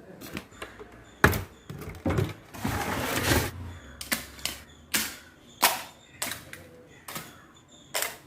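A series of sharp, irregular knocks and clicks, about a dozen, some much louder than others, with a brief rustling stretch around three seconds in.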